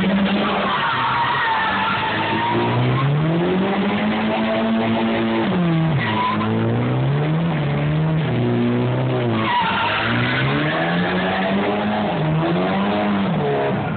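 A car doing a burnout: its engine is held at high revs and repeatedly revved up and down, while the spinning tyres squeal, loudest near the start and again about ten seconds in.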